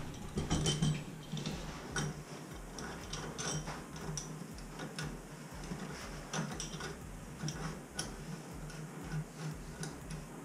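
Chrome flushometer valve being threaded by hand onto its wall control stop: irregular small metallic clicks and ticks as the metal parts turn and knock together.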